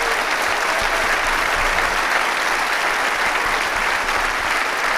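A large auditorium audience applauding steadily.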